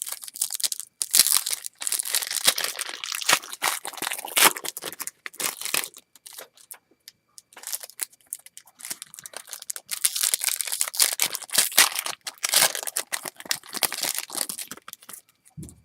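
Baseball card pack wrapper being torn open and crinkled: two long stretches of crackling rustle with a short lull midway.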